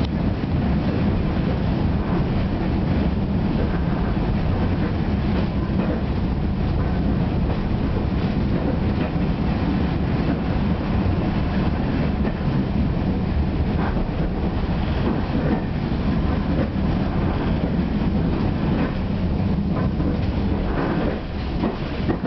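Steady running noise of a heritage railway coach in motion, wheels on the rails and the body rattling, heard from inside the carriage.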